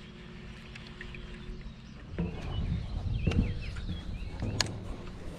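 Outdoor lakeside ambience: faint bird chirps over a low rumble that swells about two seconds in, with scattered clicks and knocks, the sharpest about three-quarters of the way through.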